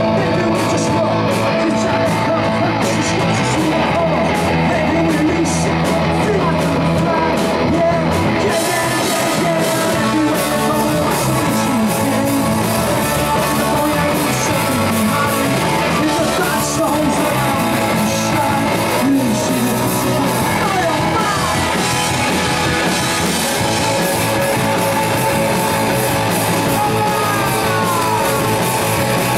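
Live indie rock band playing an instrumental passage: electric guitars, bass guitar and drums, loud and continuous, with sliding guitar notes near the end.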